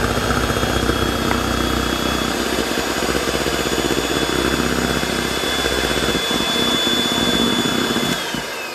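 Lord Eagle electric hand mixer running steadily with a high motor whine, its beaters whisking a foamy egg-yolk, milk and flour mixture in a stainless steel bowl. Near the end it is switched off and the whine falls as the motor winds down.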